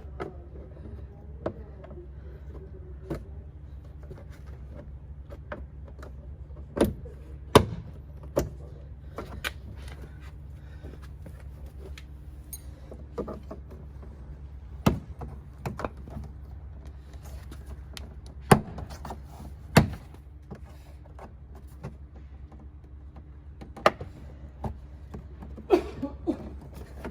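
Plastic retaining clips of a Honda Civic door panel snapping loose one after another as the panel is pried off, a scattered series of sharp snaps and clicks over a steady low hum.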